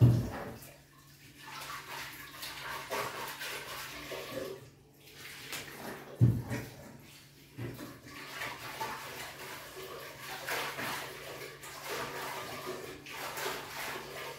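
Dishes being washed by hand at a sink: water splashing and dishes clattering, with sharp knocks at the start and again about six seconds in.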